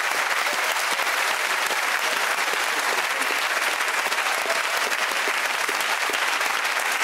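Studio audience applauding steadily, many hands clapping at an even level.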